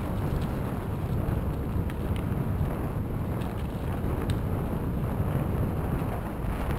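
Wind rushing over the microphone of a moving bicycle, with the low rumble of its tyres rolling on a gravel trail and a few light clicks.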